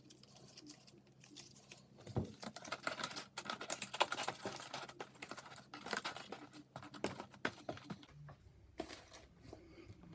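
Thin cardboard strips being handled and slotted into the slits of a cardboard storage box: a quick run of small taps, scrapes and rustles, starting about two seconds in and easing off near the end.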